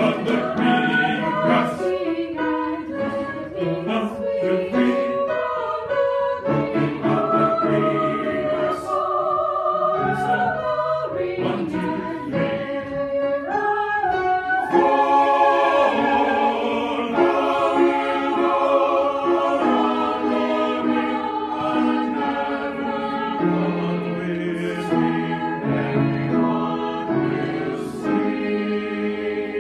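Group of voices singing a choral passage in parts, a section in shifting meter. Held notes change every second or so.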